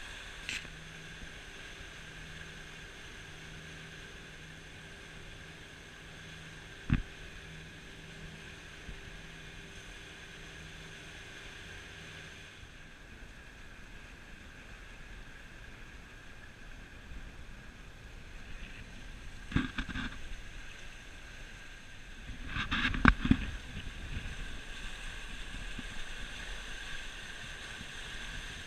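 Sailboat under way: a steady rush of water along the hull and wake, with wind on the microphone. A sharp knock about a quarter of the way in and a few thumps later on.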